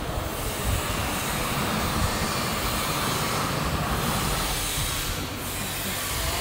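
Detergent powder packing machine running with a steady, even mechanical noise.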